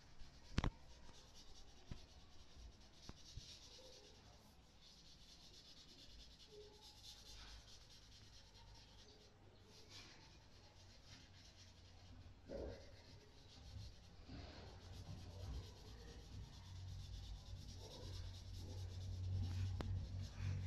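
Faint, steady scratching of a colouring tool shading a drawing on paper, with a light click about half a second in.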